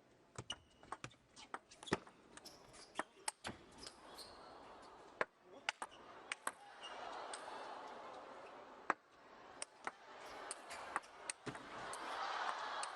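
Table tennis ball clicking sharply and irregularly off the bats and table during play. Crowd noise swells underneath toward the end.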